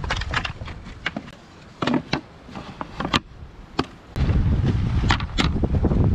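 A run of sharp, separate clicks and knocks, like gear being handled, joined about four seconds in by strong wind buffeting the microphone with a low rumble.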